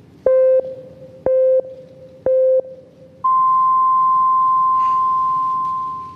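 Japanese noon time signal: three short beeps about a second apart, then one long beep an octave higher that fades near the end. It marks noon and the start of the moment of silent prayer.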